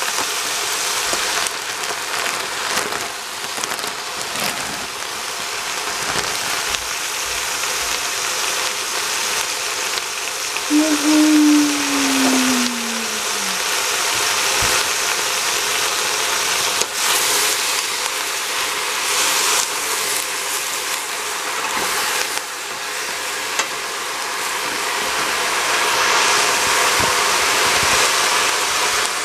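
Pork and vegetables sizzling in a stainless steel pot on a gas stove: a steady hiss. About eleven seconds in there is a short falling tone.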